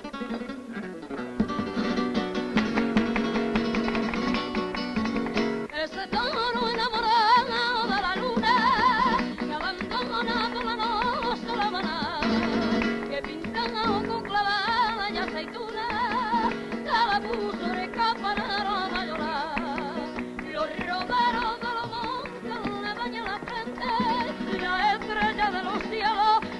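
Flamenco performance: rapid strummed guitar chords, joined from about six seconds in by a woman's voice singing a wavering, heavily ornamented melody over the guitars.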